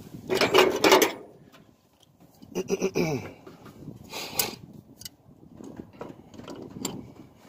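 Hand work on fuel line fittings at a fuel pump sending unit: rustling of hoses being handled and light clicks of an adjustable wrench on the fittings, with two louder rustles near the start and about four seconds in. A short whine falling in pitch sounds about three seconds in.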